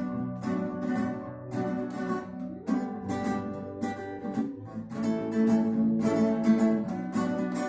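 Acoustic guitar strummed in a regular rhythm, an instrumental passage between the sung lines of a song.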